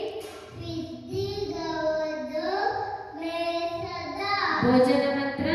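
A young boy chanting a shloka, a Hindu prayer verse, in a sing-song voice, in short phrases with brief breaths between them.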